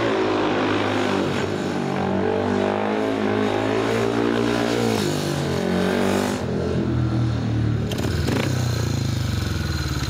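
A 500cc single-cylinder speedway motorcycle engine revving, its pitch rising and falling as the bike is ridden. It dips about six seconds in, then drops to a throbbing idle near the end.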